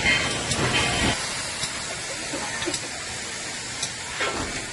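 Steam locomotive releasing steam in a steady hiss.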